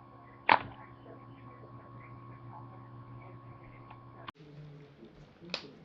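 A single sharp crack of a joint being adjusted about half a second in, over a steady electrical hum. The background changes abruptly a little past four seconds, and a second, smaller crack comes near the end.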